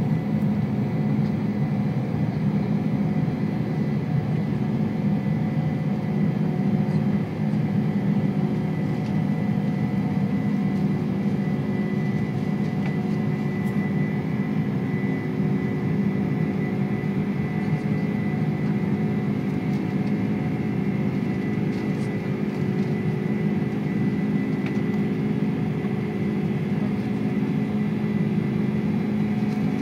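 Boeing 747-400 jet engines heard from inside the passenger cabin: a steady, even drone with a thin high tone running through it.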